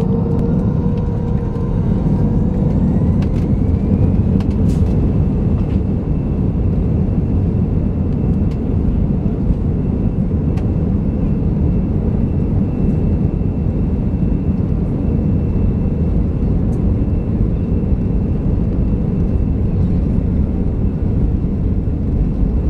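Airbus A320 jet engines spooling up to takeoff thrust, heard from a cabin seat over the wing: a whine rising in pitch over the first few seconds, then holding steady over a loud, even rumble during the takeoff roll.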